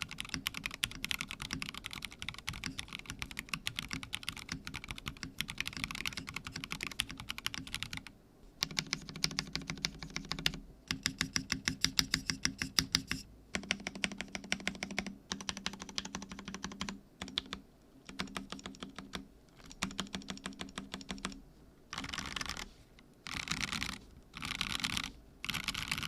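Typing on a custom mechanical keyboard: a Theca case with an aluminum plate, lubed linear switches and NicePBT PBT keycaps. The keystrokes run fast and continuously for the first several seconds, then come in short bursts with brief pauses between them.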